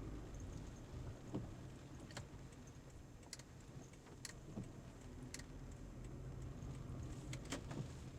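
Car driving, a steady low road rumble inside the cabin, with a few scattered sharp clicks and knocks at irregular times.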